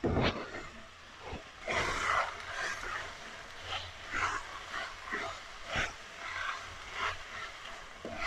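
Wooden spoon stirring chunks of raw potato through fenugreek and peas in a metal pot, scraping and knocking in irregular strokes.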